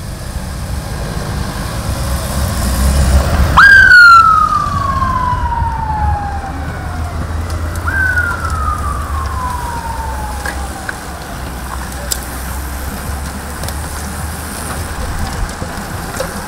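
An escort vehicle's siren sounded twice, about four seconds apart: each time it jumps up in pitch and slides slowly down over about three seconds. A low rumble of vehicle engines runs underneath and is loudest with the first siren.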